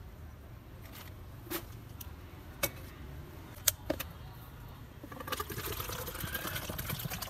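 A few sharp clicks of thin plastic cups being handled, then, about five seconds in, coconut water pouring from a freshly opened green coconut into a plastic cup, a steady splashing fill.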